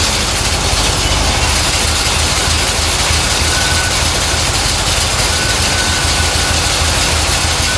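1970 Corvette's carbureted 350 cubic-inch small-block Chevy V8 running at idle, loud and steady with a low, uneven pulse. It is running rough on old fuel in the car.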